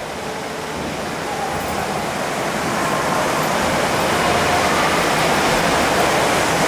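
Water rushing and churning in a boat ride's flume channel, a steady noise that grows louder.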